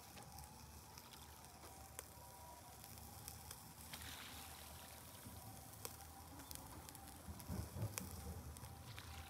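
Chicken gizzard skewers grilling on a wire mesh over a charcoal shichirin: a faint sizzle with scattered sharp crackles and pops. There is a brief low rumble near the end.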